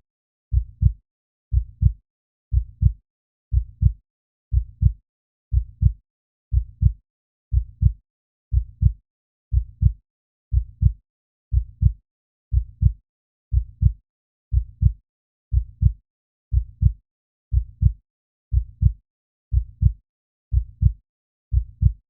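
Heartbeat sound effect: a steady lub-dub double thump, deep and low, about once a second, with nothing heard between beats.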